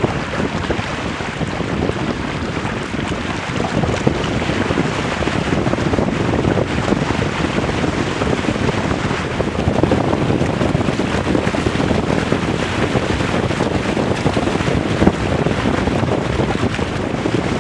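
Steady wind buffeting the microphone of a boat-mounted camera, mixed with water rushing and splashing past the hulls of a Weta trimaran sailing fast in gusty wind. It gets somewhat louder about four seconds in.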